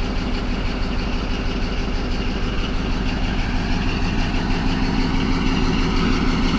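Caterpillar D11 bulldozer's diesel engine idling steadily, running after sitting unused for five months.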